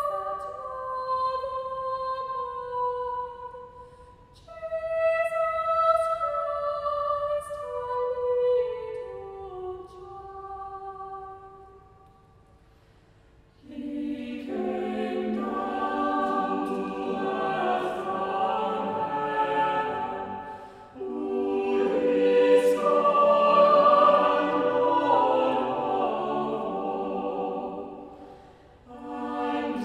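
Music for a carol: a single instrument plays two short melodic phrases, then after a brief pause a choir begins singing about halfway through and carries on.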